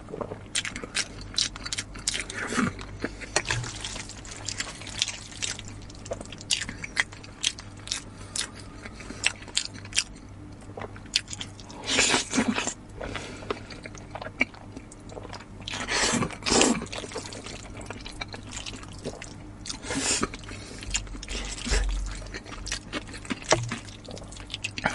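Close-miked chewing and wet mouth clicks from eating braised pork nose. Later come several loud slurps of noodles, spaced a few seconds apart.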